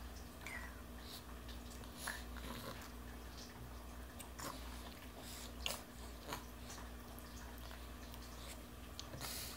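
A toddler eating finger food: faint chewing and mouth smacks, with scattered small clicks and taps as fingers pick at a plastic high-chair tray, over a steady low hum.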